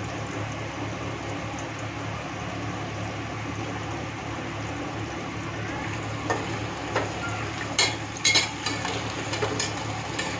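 Onion, tomato and green chilli pieces sizzling with a steady hiss in hot soybean oil in a stainless steel handi, being sautéed on medium flame. From about six seconds in, a metal slotted spoon clinks and scrapes against the steel pot as they are stirred.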